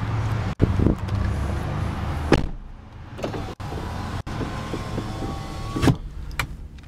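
2001 Acura CL's 3.2-litre V6 idling, with a sharp click about two seconds in. A power window motor then whines steadily for about two and a half seconds and stops with a thump near the end.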